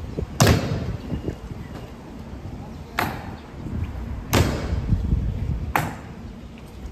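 Four sharp, ringing impacts from honor guard drill, about half a second, three, four and a half and six seconds in, over a steady low rumble.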